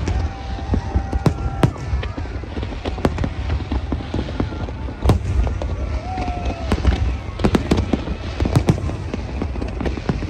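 Large fireworks display: many bangs and crackles going off in quick, irregular succession over a continuous low rumble.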